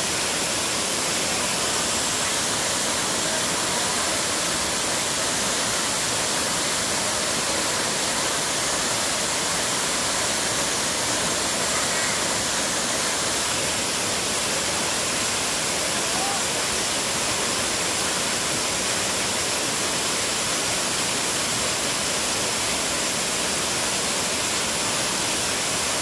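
Waterfall pouring over a rock ledge into a pool: a steady, even rush of water.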